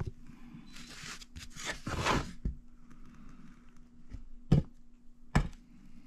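Thin quilted maple tops rubbing and sliding against each other as they are handled, then two sharp wooden knocks about a second apart, over a faint steady hum.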